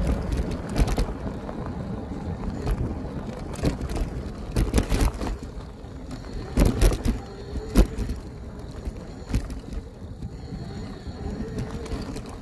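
Electric bike riding over a rough off-road trail: irregular knocks and rattles as it goes over bumps, over a low rumble of wind on the microphone that is strongest at the start and eases off.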